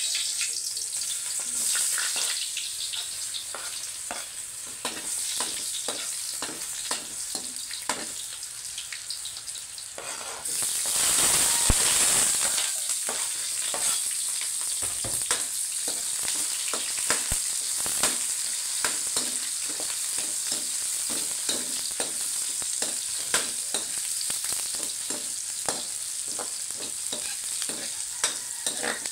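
Chopped garlic and then sliced onions sizzling in hot oil in an aluminium wok, with a metal ladle clicking and scraping against the pan as they are stirred. The sizzle rises sharply about ten seconds in.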